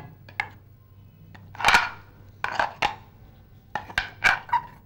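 Steel spoon scraping and knocking against a stainless steel mixer-grinder jar, working thick ground batter out of it: a series of irregular knocks and scrapes, the loudest about two seconds in.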